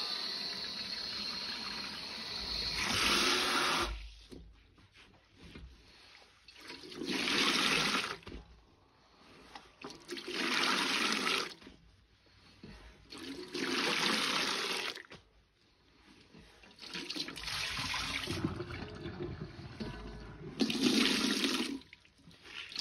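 Water running into a stainless steel bowl for about the first three seconds, then a soaked sponge repeatedly pressed down and squeezed in soapy water. Each press sends water splashing out of it, about every three seconds, six times in all.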